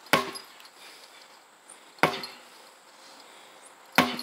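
Sledgehammer strikes: three heavy blows about two seconds apart, each followed by a short ring.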